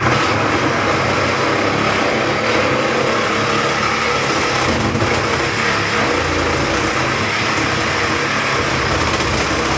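Reciprocating saw running at full speed, cutting through a refrigerator's cabinet. It starts suddenly and keeps a steady, loud buzz without pause.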